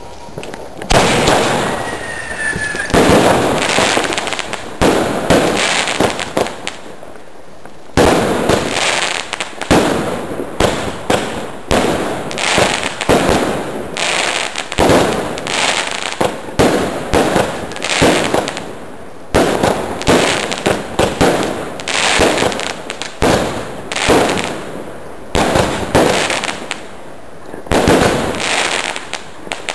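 Two Salon Roger 13-shot fireworks cakes, Gold to Gold Strobe and Cocopalm Tree, fired at the same time: a long string of sharp shots and bursts, often more than one a second, with a lull of about two seconds roughly a quarter of the way in.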